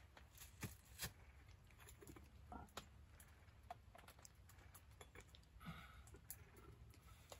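Faint, sparse crackles and clicks from a small campfire, with a few small knocks and light ringing touches of metal camp cookware being handled.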